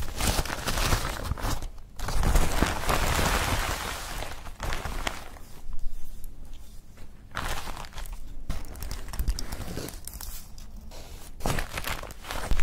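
Tissue paper crinkling and rustling as it is pulled off a wax pillar candle, in stretches with quieter pauses between.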